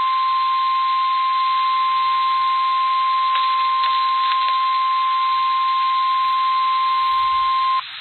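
NOAA Weather Radio warning alarm tone: a single steady 1050 Hz beep held over radio static, cutting off near the end. It is the signal that a weather warning is about to be broadcast.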